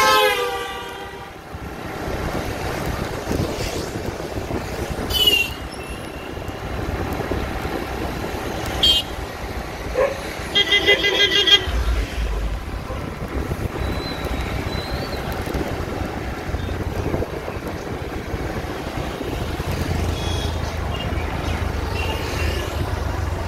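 Vehicle horns honking over the steady engine, wind and road noise of a motorbike ride through traffic. A horn blast at the start drops in pitch as it passes, single short toots come about five and nine seconds in, and a quick run of beeps follows around eleven seconds in.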